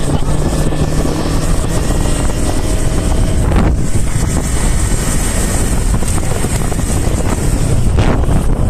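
Yamaha YZF-R25's parallel-twin engine running steadily as the motorcycle rides along, largely buried under heavy wind buffeting on the microphone.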